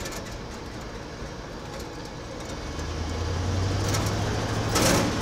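1977 Ford F-250 pickup's engine heard from inside the cab, running quietly at a stop and then pulling away, its low tone coming up and getting louder about three seconds in. A brief rush of noise near the end.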